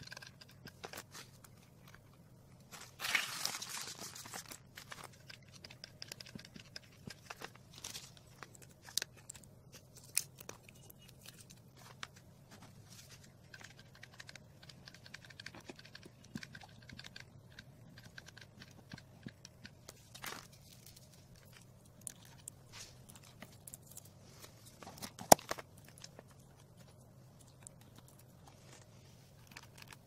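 Hands working on a craft piece with a hot glue gun: scattered small clicks and rustles, with a brief crackling rustle about three seconds in and one sharp click near the end, over a faint steady low hum.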